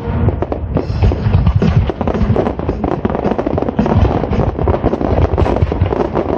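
Aerial fireworks shells bursting in a dense, overlapping barrage: deep booms and sharp reports, several a second, with no break.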